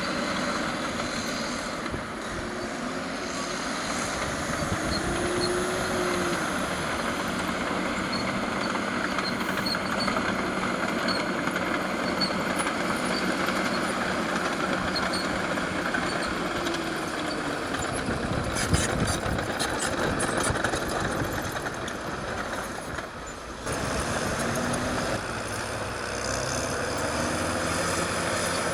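Caterpillar D6R LGP crawler dozer working, its diesel engine running under load with the revs rising and falling. A run of sharp metallic clanks comes about two-thirds of the way through, followed by a brief drop in level.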